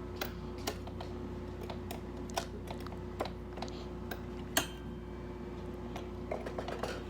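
Irregular light clicks and taps, about one or two a second, with one louder click about four and a half seconds in, over a steady electrical hum.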